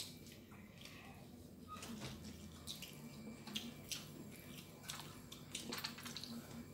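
Close-up wet eating sounds: chewing and lip-smacking as food is eaten by hand, in many small scattered clicks, over a faint low hum.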